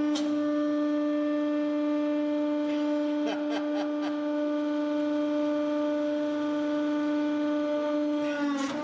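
A hydraulic press's pump drones steadily at one pitch as the ram comes down, with a few faint clicks about three to four seconds in. The pitch sags briefly near the end as the ram squashes the plasticine figure.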